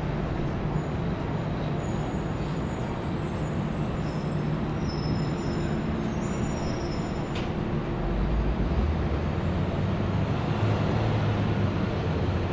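Steady city traffic noise, a continuous rumble of road vehicles, with a heavier low rumble building about two-thirds of the way through as a large vehicle goes by.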